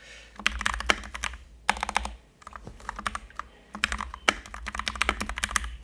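Keychron K2 mechanical keyboard being typed on: runs of quick keystroke clicks, with a short pause about two seconds in.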